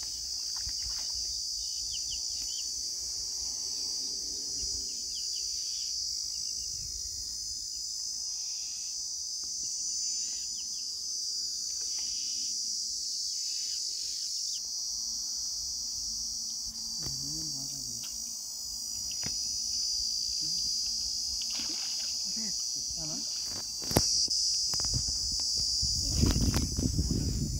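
A steady, high-pitched chorus of insects trilling. Near the end comes a sharp click, then rustling and swishing as a long fishing rod is jerked up out of the grass and weeds.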